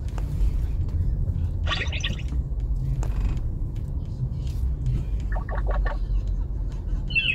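Steady low rumble of a car's engine and road noise heard inside the cabin, with a few brief higher sounds over it, including a short rapid rattle about five seconds in.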